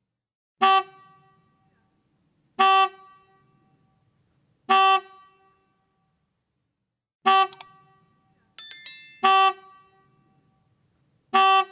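Electric car horn sounding in short toots, six in all, about two seconds apart. A brief burst of high stepped tones comes just before the fifth toot.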